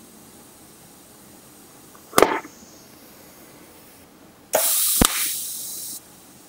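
DC TIG welding arc on thin steel. About two seconds in there is a short crack as an arc is struck briefly. About four and a half seconds in the arc runs as a steady bright hiss for about a second and a half, with a sharp click partway, then cuts off suddenly.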